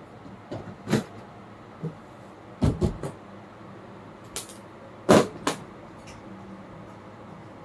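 Handling noise: a scattering of sharp knocks and clicks as small parts and a hand tool are picked up, worked at the speargun's reel and set down on the counter, with a quick cluster near the middle and the loudest pair of knocks a little past halfway.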